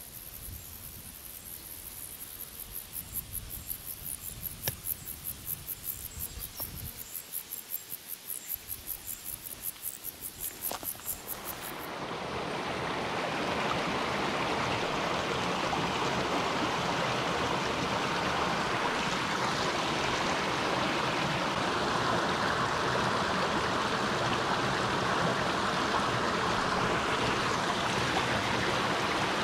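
High-pitched insect chirping in a fast, even pulse, with a couple of faint clicks. About twelve seconds in, the sound changes to the steady rush of running water from a stream.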